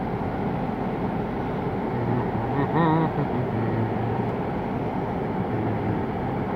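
Steady hum of a car's engine and tyres heard from inside the cabin. A short wavering voice sound comes about three seconds in.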